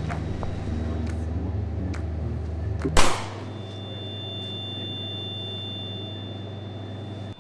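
A single loud gunshot about three seconds in, cracking over a steady low hum. A faint high steady tone lingers after it.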